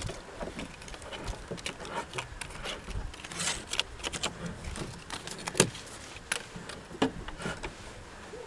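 Handling noise of a small brass ball-valve fitting: light metallic clicks and clinks with a paper tag rustling, then the fitting being threaded by hand onto the tank's brass bulkhead fitting. One sharper click stands out about five and a half seconds in.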